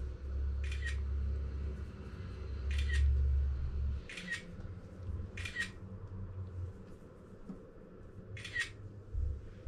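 Kittens clambering over a lap, rubbing and bumping against the microphone: a low rubbing rumble that is strongest for the first few seconds and dies away, with five short sharp ticks or squeaks spread through.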